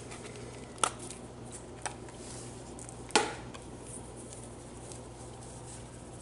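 Clicks and taps from a plastic garlic powder shaker being handled over a bowl: three sharp clicks about a second apart, the last and loudest about three seconds in, with a few fainter ticks, over a low steady hum.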